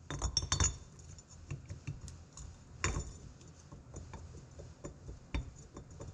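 Steel transmission parts clinking and tapping as they are handled on a metal-strewn workbench: scattered light clinks, with sharper knocks about three seconds in and again past five seconds.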